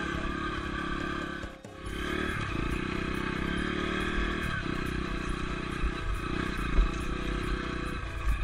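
Dirt bike engine running under way on a rough track, the engine note dropping away briefly about one and a half seconds in and then picking up again, with further changes in pitch as the rider works the throttle.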